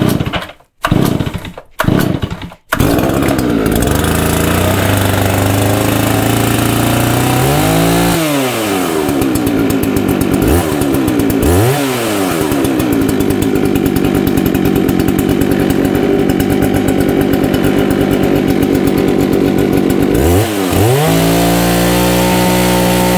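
Solo 650 VA two-stroke chainsaw pull-started on choke with the throttle latched: a few short starter pulls, then it catches about three seconds in and runs at a fast idle. The engine speed dips and swings back up several times and settles steadier near the end. The chain stays still at idle on its newly fitted Dolmar centrifugal clutch.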